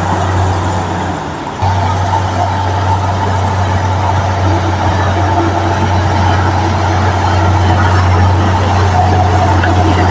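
Heavy diesel engine of a dump truck or bulldozer running steadily with a deep drone, broken by a brief dip and sudden return about a second and a half in.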